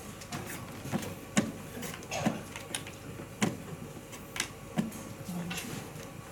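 A run of sharp, separate clicks as draughts pieces are set down and moved on the board and the game clock is pressed during a rapid game, about seven clicks over four seconds.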